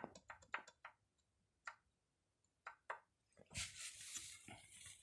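Faint clicks and light taps from engine parts being handled, several in quick succession at first and a few more spread out, then a short rustle.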